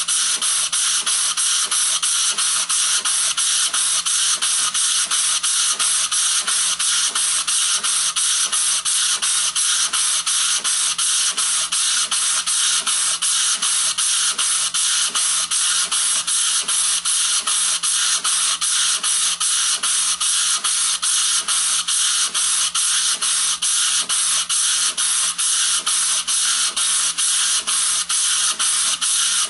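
Small homemade prototype steam engine running steadily, its exhaust hissing in an even, rapid beat of about three pulses a second.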